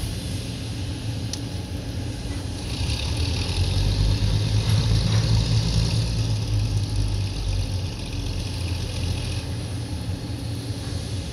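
Diesel switcher locomotive's engine running with a low rumble. It grows louder about three and a half seconds in and eases back around eight seconds in. A steady hiss runs from about three to nine seconds in.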